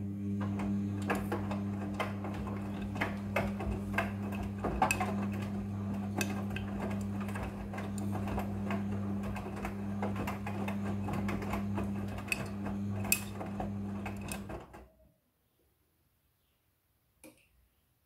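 Front-loading washing machine agitating a load: the motor hums steadily while wet clothes tumble in the drum, with frequent irregular knocks and clicks. Near 15 seconds in, the drum stops and the sound cuts off, leaving near silence with one faint click.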